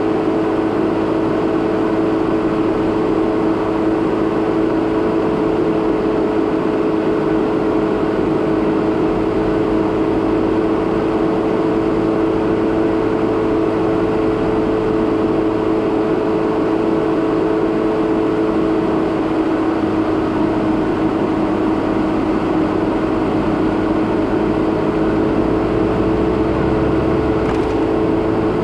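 A 2017 Jeep Renegade Trailhawk's 2.4-litre four-cylinder engine hums at a steady, unchanging pitch while its tyres rush continuously over a dirt road as it drives along at an even speed.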